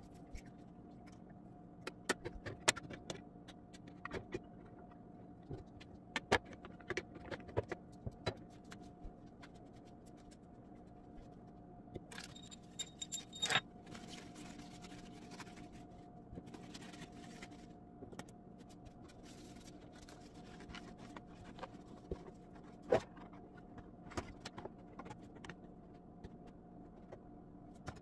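Light clattering and clicking of household items and organiser parts being handled under a kitchen sink, with irregular sharp knocks and a short scraping rustle near the middle, over a steady low hum.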